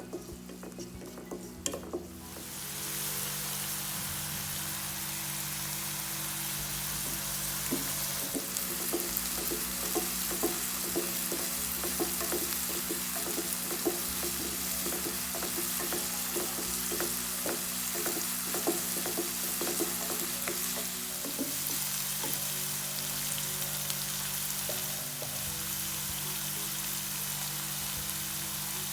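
Beetroot and dal thoran frying in a hot pan: a steady sizzle starts about two seconds in and keeps going. Through the middle stretch a spoon stirs and scrapes the pan in quick small ticks.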